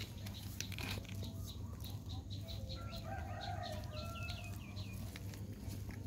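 Rapid series of short, high-pitched animal peeps and squeaks, a few of them falling in pitch about four seconds in, over a steady low hum.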